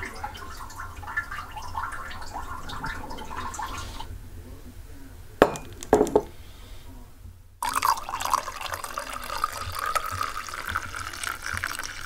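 Running water for the first few seconds, then two sharp knocks as a ceramic mug is set down on a wooden table. From about eight seconds in, coffee is poured from a glass carafe and splashes into the mug.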